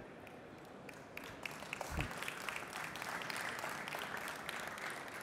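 Audience applauding: scattered claps about a second in swell into steady applause, then thin out near the end. There is a single low thump about two seconds in.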